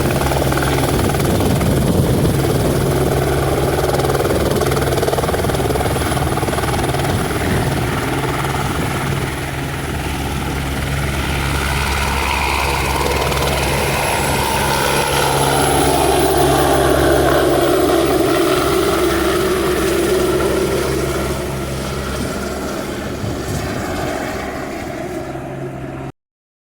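Air ambulance helicopter running close by, its rotor beat and turbine noise continuous, growing louder toward the middle and easing off later, then cutting off abruptly near the end.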